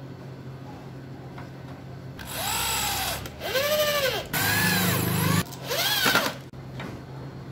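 Corded electric drill run in four short trigger bursts, its motor whining up to speed and dropping away each time, as the bit works into a wooden slat. The third burst holds steadier and longer.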